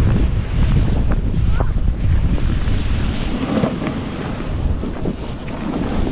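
Heavy wind buffeting an action camera's microphone: a loud, steady low rumble that eases a little in the second half.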